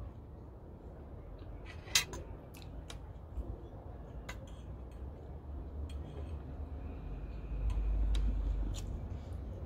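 Metal fork clicking and scraping against a plate while eating, a string of sharp separate clinks with the loudest about two seconds in.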